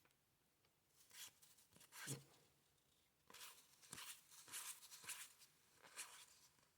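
Faint sliding and flicking of paper baseball cards being shuffled through by hand: a few soft scrapes early on, then a quicker run of them for a few seconds.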